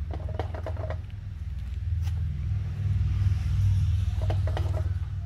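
Light metal clicks and knocks as the crankcase cover of a Briggs & Stratton single-cylinder engine is seated back onto the engine block, over a steady low rumble that grows louder about halfway through.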